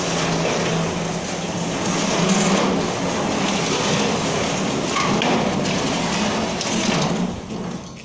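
Steel folding garage door being pulled closed by hand, its panels unfolding and rolling along the track with a continuous clattering noise that stops shortly before the end.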